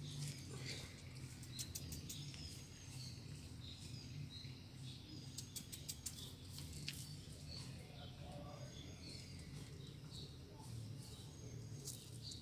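Quiet outdoor ambience: small birds chirping now and then over a low steady rumble, with a few sharp clicks about halfway through.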